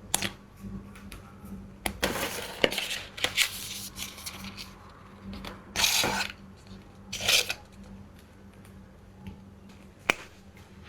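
Packaging and products being handled: bouts of rustling and scraping, two louder bursts past the middle, and a single sharp click near the end, over a steady low electrical hum.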